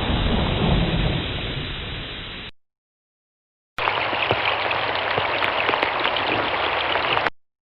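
Thunderstorm: a low rumble of thunder over rain, fading away and stopping about two and a half seconds in. After a second of silence, a separate recording of steady heavy rain starts and then cuts off abruptly near the end.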